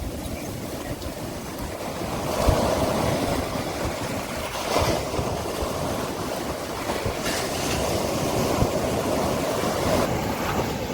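Sea waves washing on a beach, a steady rush of surf that swells several times, with a sharp jolt about two and a half seconds in.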